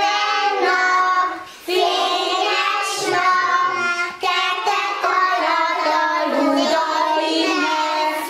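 Group of small children singing a nursery song together, with a short break about a second and a half in.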